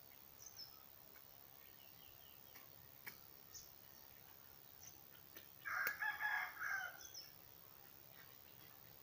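A rooster crowing once, about a second and a half long, over quiet morning background, with a few short high bird chirps scattered around it.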